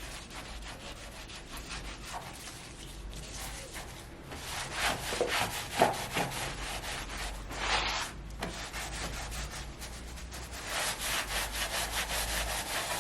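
Copper being scrubbed by hand with lemon and salt: gritty rubbing in fast back-and-forth strokes, heavier in a few stretches, the salt grinding against the metal.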